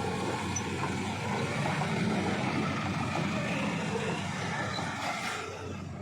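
Motor vehicle engines running steadily as traffic moves slowly through a one-lane section of road, with a low hum and road noise that eases slightly near the end.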